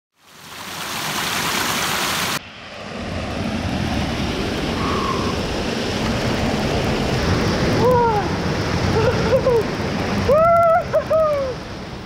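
Waterfall rushing close by: a steady roar of falling water, which changes abruptly about two seconds in. Near the end, a few short rising and falling calls sound over it.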